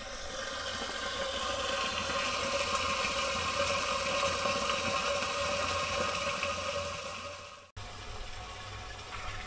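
Water running through a hose and flow meter into a tank, a steady rush that swells and then fades. About three-quarters of the way through it cuts off abruptly to a quieter low hum.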